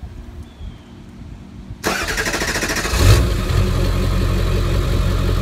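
A 2002 Ford F-350's 7.3 L Power Stroke V8 turbo-diesel, heard at the tailpipe, is started: about two seconds in the starter cranks for roughly a second. The engine then catches with a brief surge and settles into a steady idle.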